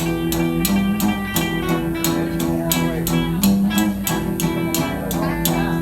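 Instrumental break of an upbeat song: guitar and bass play over a steady drum beat.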